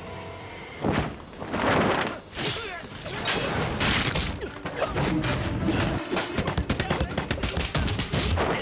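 Fight-scene sound effects: blows and thuds mixed with shouts, with a sharp hit about a second in and a fast, dense run of cracks and hits through the second half.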